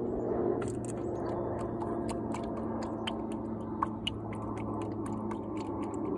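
Motor oil being poured from a plastic jug into a funnel in the engine's oil filler, heard as a run of irregular clicks and crackles starting about a second in. A steady low hum runs underneath.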